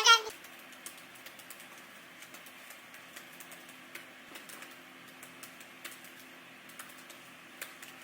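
Faint, irregularly spaced light clicks, several a second, over a steady low hum.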